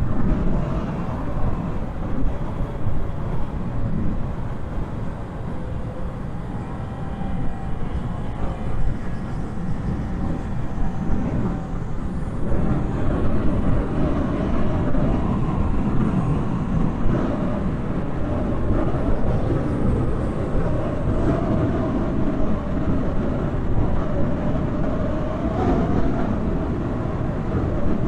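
Steady wind rush and road rumble from riding in a moving vehicle, picked up on a pin microphone, with a faint engine hum that grows stronger about twelve seconds in.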